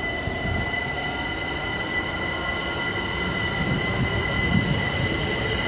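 Southern electric multiple-unit train running past, its wheels rumbling on the track under a steady high-pitched whine that holds one pitch throughout.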